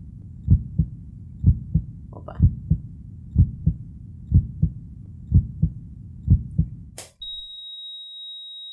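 Heartbeat sound effect: paired low thumps, lub-dub, about once a second. About seven seconds in, a click cuts it off, and a steady high beep follows, like a heart monitor flatlining.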